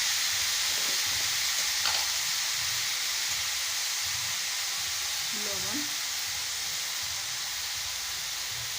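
Grated radish and potato curry sizzling steadily in hot oil in a pan.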